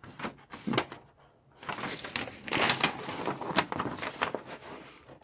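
Large folded paper instruction sheet rustling and crackling as it is handled, unfolded and turned over. A few short rustles at first, then a denser, louder stretch of crackling from about a second and a half in, dying down near the end.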